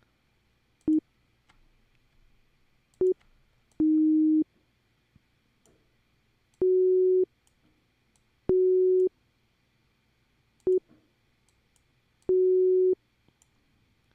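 Synthesized pure tones played back from a Logic Pro MIDI sequence: seven plain beep-like notes at a low-mid pitch, some short blips and some about half a second long, with gaps between them. Each note starts with a sharp click.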